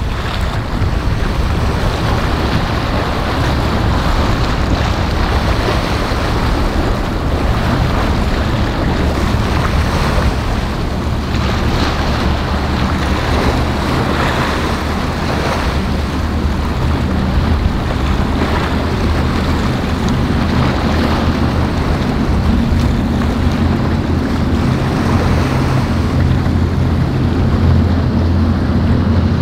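Ocean waves breaking and washing through the inlet, with wind buffeting the microphone. From about two-thirds of the way through, a boat's engine hum builds steadily and grows louder toward the end.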